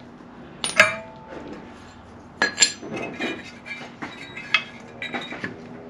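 Loose steel nuts and a pulley half from an alternator cooling fan clinking as they are handled and set down on a concrete floor. A few sharp, briefly ringing metal clinks come among quieter rattles.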